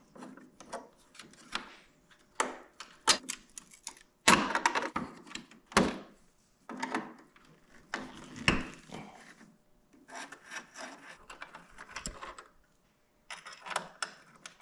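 Screwdriver and box-end wrench loosening the nut and bolt of a motorcycle windshield lever: irregular scraping strokes and clicks of metal tools on the fastener and fairing, with a brief quiet gap near the end.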